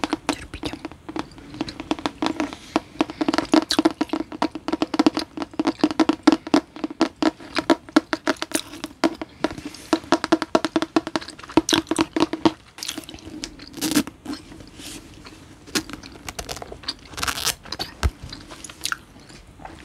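Long fingernails rapidly tapping and scratching on the glossy cover of a paperback book, in a dense stream of crisp clicks. After about 12 seconds the clicks thin out into sparser, sharper taps, with a few louder ones near the end.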